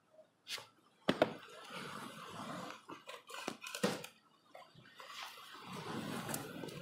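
Water splashing and sloshing on a wet wooden deck, broken by several sharp slaps and knocks, as small live mullet are got out of a plastic bait bottle onto the boards.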